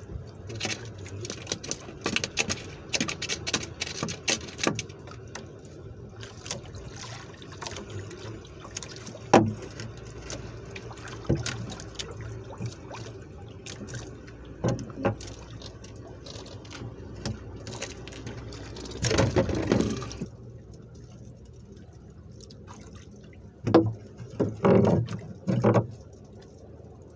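Water sloshing against the hull of a small boat, with many sharp clicks and knocks from handling the handline and catch; a louder splashing rush lasts about a second two-thirds of the way through, and a few heavy knocks come near the end.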